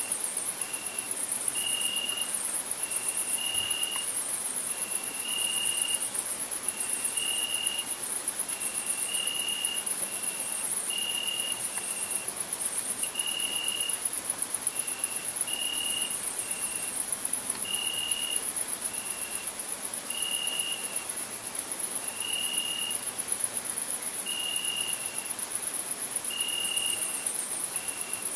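Crickets singing: a dense, rapid, high-pitched trill that never stops, with a lower, purer trilled note repeating about once a second, alternating longer and shorter notes.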